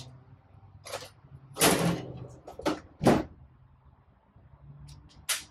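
Handling noises as a tube of silicone sealant is cut open and readied: a few short, irregular scrapes and knocks, the loudest a scrape just under two seconds in and a sharp knock a little after three seconds, with another near the end.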